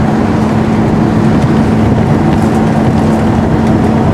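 Underfloor diesel engine of an AEC Reliance bus running at a steady speed, heard from inside the saloon as a constant drone over a low rumble.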